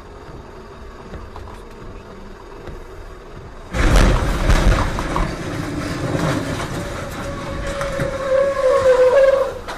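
Road and tyre noise on a wet highway, then about four seconds in a sudden loud tractor-trailer crash, followed by several seconds of heavy crashing and grinding as the trucks hit. A steady high tone rises out of the noise near the end, then everything cuts off sharply.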